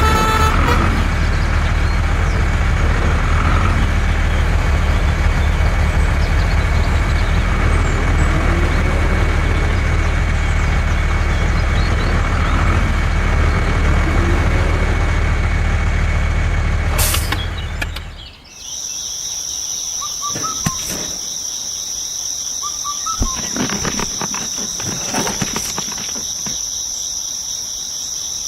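A truck engine running steadily with a low rumble, cutting off suddenly about 18 seconds in. After it comes a steady high-pitched cricket chirring with a few scattered light knocks.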